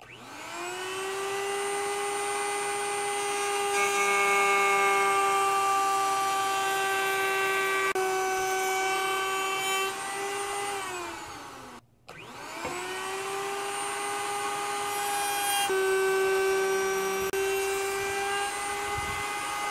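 An old Craftsman router with a round-over bit spins up to a steady high whine, changes in tone as the stair railing's edge is fed past the bit, then winds down. This happens twice.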